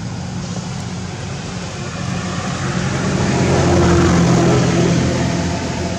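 Steady low engine drone that grows louder toward the middle and eases off near the end.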